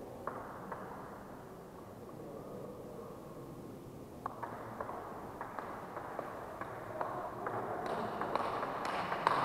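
Table tennis rally: the sharp clicks of a celluloid ball striking the bats and the table. Two clicks come near the start, then from about four seconds in a steady exchange with a click roughly every half second.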